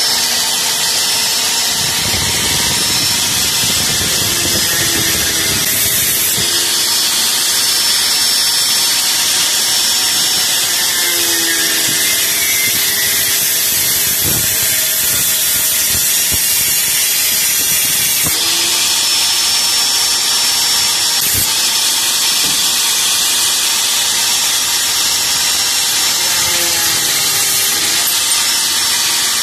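Handheld electric angle grinder running continuously with its disc against a plastic part, grinding it down. The motor's pitch sags and recovers several times as the disc is pressed into the work and eased off.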